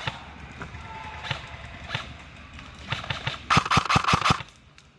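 Airsoft guns firing: a few single shots, then a loud rapid burst of about seven shots about three and a half seconds in.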